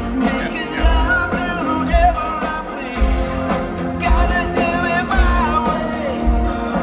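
Rock band playing live through a big concert sound system, with a singer's voice over guitars and a steady kick drum about once a second, heard from the crowd in an open-air amphitheatre.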